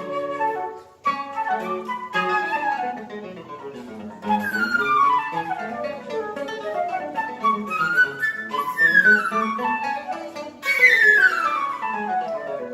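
Flute and guitar duo playing a serenade, the melody sweeping down in quick falling runs several times, the last and loudest near the end.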